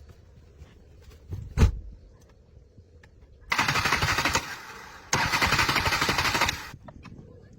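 Two loud bursts of rapid mechanical rattling, the first under a second and the second about a second and a half long, preceded by a single thump.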